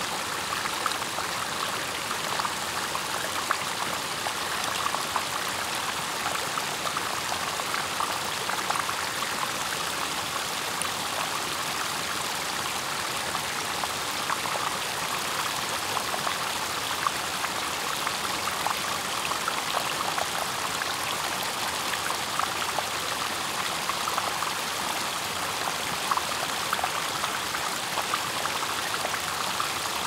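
Small waterfall on a fast-flowing stream: water rushing and splashing steadily, dotted with many small sharp drips and splashes.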